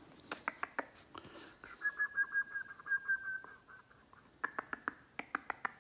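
A person whistling one steady, slightly falling note for about a second and a half. Before and after it come quick runs of sharp clicks like finger snaps, several a second.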